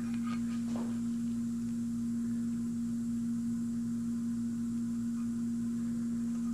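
A steady low hum, one unchanging tone, with a few faint ticks in the first second.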